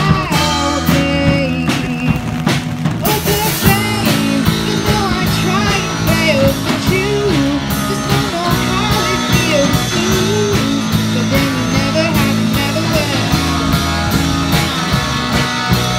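Amateur rock band playing live: a female lead vocal sung over electric guitar, bass guitar and a drum kit, all played through small practice amps.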